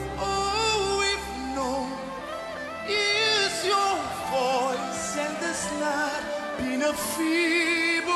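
A male lead singer sings a slow gospel worship song, his voice gliding and wavering in ornamented runs over sustained backing chords. A low bass note drops out about two seconds in.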